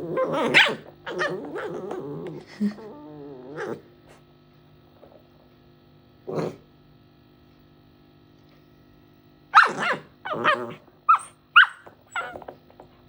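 A puppy making playful sounds: a run of growling for the first few seconds, a single bark about six seconds in, then a quick string of barks and high yips near the end.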